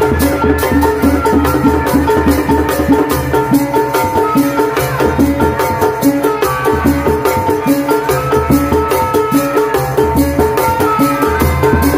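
Sundanese tanji ensemble playing kuda renggong music: fast, dense drumming with deep drum beats under a melody.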